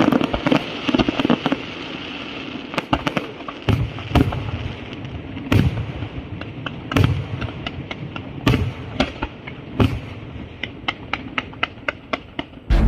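Fireworks going off: a series of loud bangs from bursting shells, spaced about a second apart, followed near the end by a quicker run of smaller cracks.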